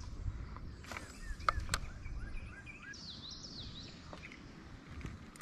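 Songbirds singing along the riverbank, with short downward-slurred notes repeated in quick series, over a steady low rumble. Two sharp clicks about a second and a half in.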